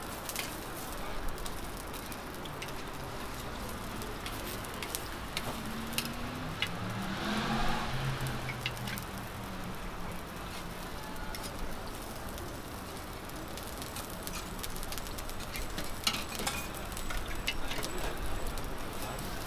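Millet pancakes sizzling in oil on a flat griddle, with scattered clicks and scrapes of a metal spatula and press on the griddle surface.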